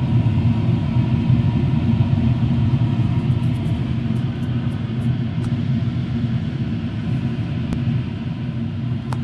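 Blower fan of a HEPA laminar flow hood running steadily, a loud even rumble with a low hum. A few faint light ticks come in the middle.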